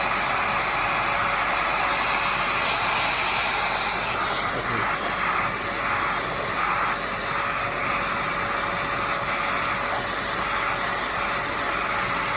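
Corded stick vacuum cleaner running steadily: an even motor whine over the rush of air, the suction being tried out with an attachment fitted.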